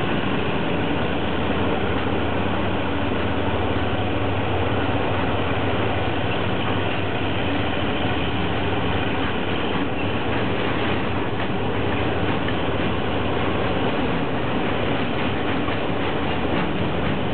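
Loaded container flat wagons of a diesel-hauled freight train rolling past close by, steel wheels clacking over the rail joints, with a steady low drone under it.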